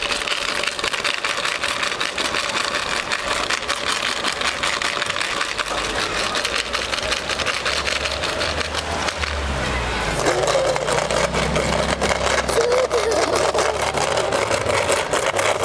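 A car engine running low as a car drives slowly past, over a steady noisy outdoor background.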